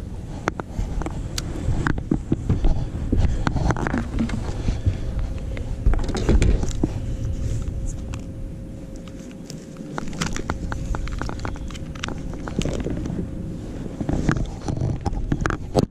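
Knocks, clicks and rustling from gear being handled aboard a bass boat, over a low rumble, with a faint steady hum through the middle.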